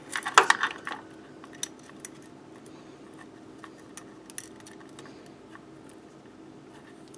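Light clicks and taps of small parts and hand tools being handled, a cluster in the first second and then scattered single ticks, over a faint steady hum.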